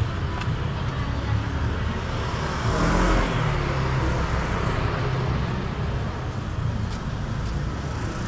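City street traffic: a steady rumble of motor scooters and cars on the road, with one vehicle passing close and louder about three seconds in.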